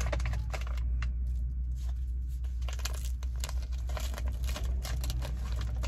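Plastic-and-foil packaging of a freeze-dried military ration pouch crinkling and rustling as it is handled, with many small crackles throughout.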